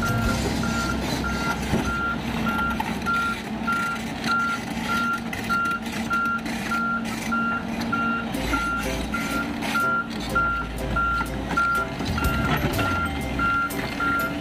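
Volvo EC210 crawler excavator's travel alarm beeping steadily, about one and a half beeps a second, while the machine tracks along, over the low running of its diesel engine.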